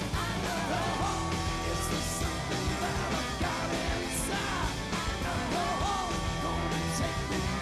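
Live rock band playing: drums, bass and guitar under held, wavering sung notes from the vocalists.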